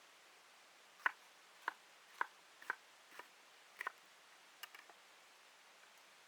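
About eight short, sharp knocks at irregular intervals between about one and five seconds in, over a faint steady hiss.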